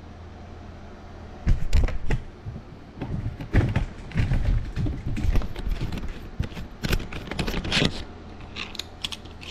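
Irregular clicks, knocks and heavy thumps of handling noise as the camera is moved and repositioned. They come in clusters for most of the time and die down near the end.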